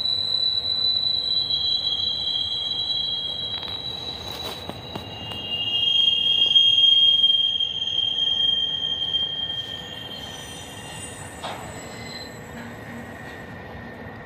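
Freight train cars rolling past with their steel wheels squealing in several high, steady tones over a low rumble. The squeal is loudest about halfway through, then fades to a fainter single tone.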